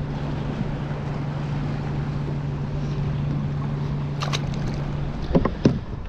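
Wind and water noise around a kayak on open water, with a steady low hum that stops about five seconds in. Near the end come a few sharp knocks and clatters as the kayak's pedal drive is handled.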